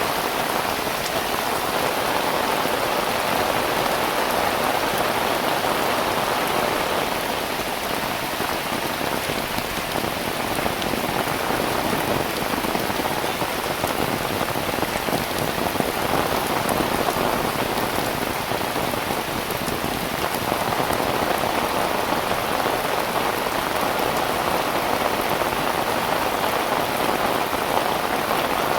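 Heavy rain falling steadily: a dense hiss of countless drops pattering on surfaces, swelling and easing slightly now and then.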